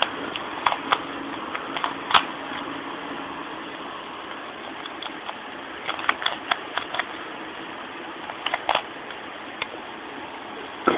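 Rubik's cube being twisted by hand: sharp plastic clicks of the layers turning, in irregular runs, with a lull in the middle.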